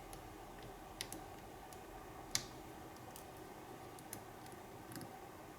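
Faint, scattered metallic clicks and ticks of lock picks and a tension wrench working in a padlock, a few separate clicks with the sharpest about two and a half seconds in.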